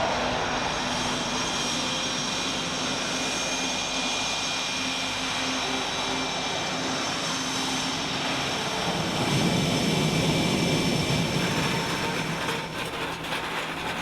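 CF-18 Hornet's twin General Electric F404 jet engines running with a steady high whine over a broad rush of noise. The rush grows louder about nine seconds in, and a few sharp clicks come near the end.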